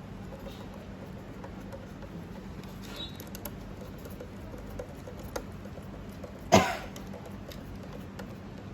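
Light scattered clicks and taps of small screws and a screwdriver being handled while the outer cover of a fusion splicer is screwed back on, with one louder knock about six and a half seconds in, over a faint steady hum.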